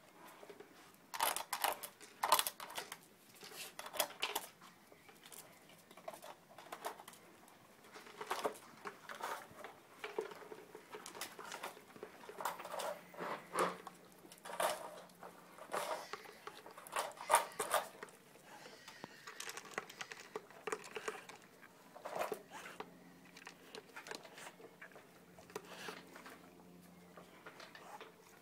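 Dogs eating dry food from plastic puzzle feeders: irregular crunching and clicking as kibble and muzzles knock against the plastic, in uneven clusters.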